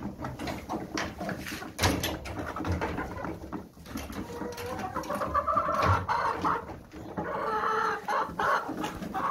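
A flock of chickens clucking, with longer drawn-out calls about five to six seconds in and again near the end. A sharp knock sounds about two seconds in.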